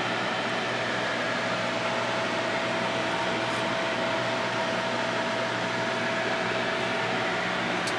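Steady whir of fans running in a grow tent, a constant air noise with a steady mid-pitched hum in it.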